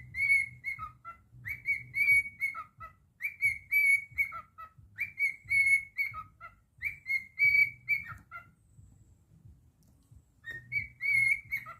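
Cockatiel whistling a song: phrases of clear whistled notes, mostly on one pitch with quick downward dips. It stops for about two seconds late on, then starts whistling again.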